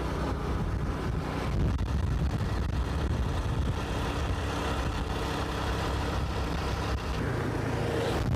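Motorcycle engine running steadily while riding along the road, with a constant low hum and road noise.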